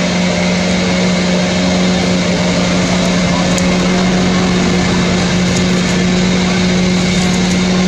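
A motor or engine running steadily, a constant hum over a noisy wash.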